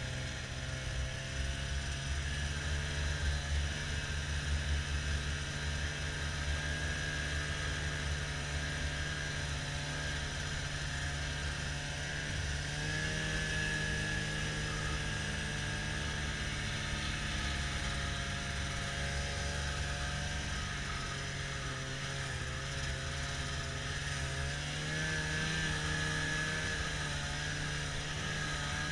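Arctic Cat Bearcat XT 570 two-stroke snowmobile running steadily at trail-riding speed, heard from the sled itself. Its engine note shifts in pitch about halfway through and again near the end as the throttle changes, over a low rumble from the track.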